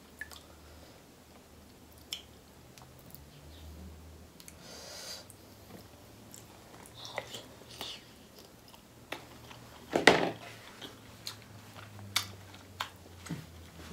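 Close-miked chewing and wet mouth sounds of someone eating seafood boil in butter sauce, with scattered clicks and smacks as shellfish meat is pulled from the shell. The loudest sharp sound comes about ten seconds in.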